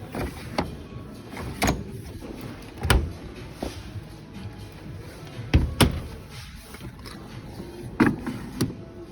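Display washing machines and dishwashers being handled: about seven sharp clicks and knocks, some with a dull thud, such as doors, latches and controls being worked, over background music.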